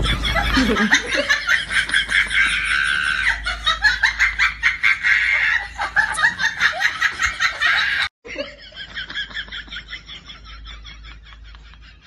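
Rapid, pulsing laughter that breaks off suddenly about eight seconds in, then continues more faintly.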